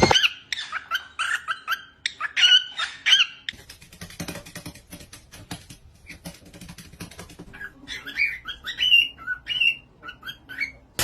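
Pet parrot chirping and whistling in many short rising and falling calls: a quick run in the first three seconds and another from about seven and a half seconds until near the end, with scattered soft clicks in between.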